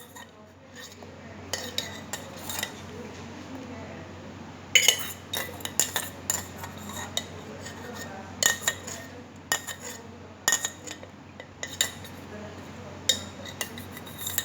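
Kitchen utensils and glassware clinking and knocking, irregular sharp clinks every second or so.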